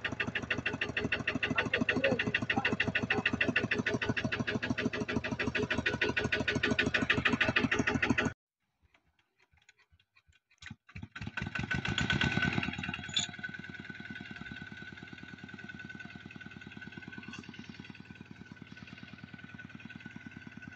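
Single-cylinder diesel engine of a Kubota two-wheel walking tractor chugging steadily as it tows a trailer, cutting off suddenly about eight seconds in. After about two seconds of silence, a tractor engine chugs again, loudest for a second or two, then runs more quietly and steadily with a faint whine.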